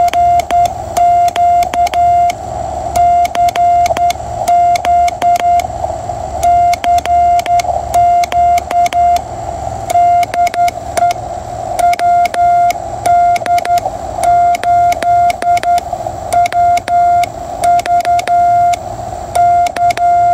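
QRP Labs QCX CW transceiver's sidetone beeping Morse code as its S1 push-button, fitted as a key, is pressed: one pure tone switching on and off in short and long marks, with a click at each key-down and key-up.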